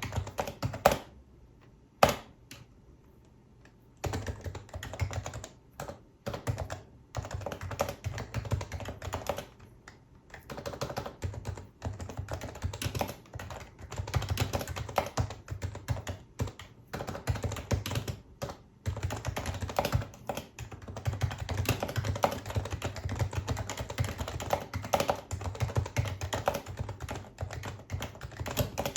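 Fast typing on a Happy Hacking Keyboard Professional HYBRID Type-S with electrostatic capacitive (Topre) switches. Two louder strikes come in the first two seconds, then a short pause, then steady, rapid keystrokes.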